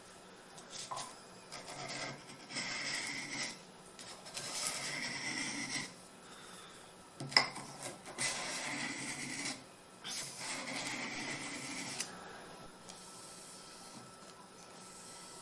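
Scandi-ground carving knife blade drawn back and forth over a sharpening stone in a series of scraping strokes, each a second or two long, stopping about twelve seconds in. One sharp click about seven seconds in.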